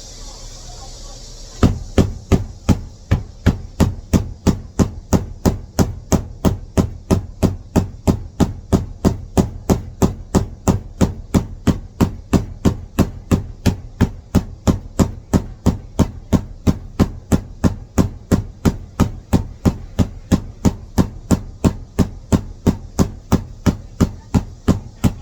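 Cobbler's hammer tapping on a sandal sole and platform heel, an even run of sharp knocks at about three a second that starts a second and a half in, as the reattached sole is hammered down.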